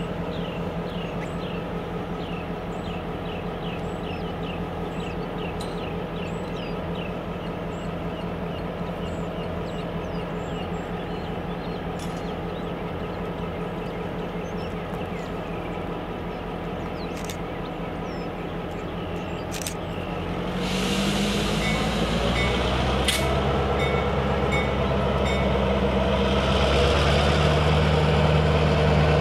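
Norfolk Southern diesel locomotive idling with a steady engine drone. About twenty seconds in, air hisses off and the engine revs up and runs louder as the locomotive starts to pull away.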